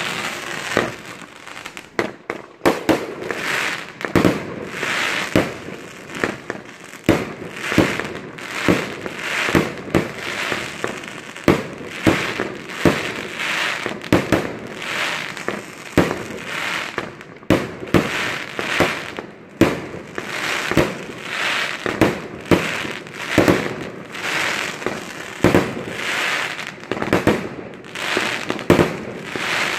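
Fireworks going off in a continuous barrage: sharp bangs a few a second with crackling between them.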